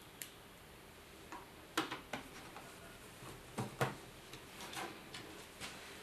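Faint, irregular light clicks and ticks of a small screwdriver driving the last two screws into a laptop's plastic screen bezel, a few louder clicks about two seconds in and again near four seconds.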